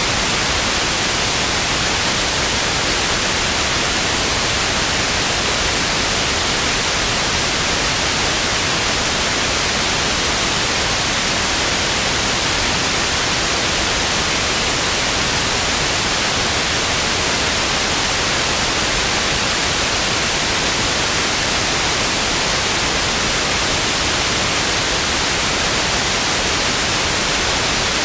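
Analogue TV static: a steady, even hiss of white noise, unchanging throughout.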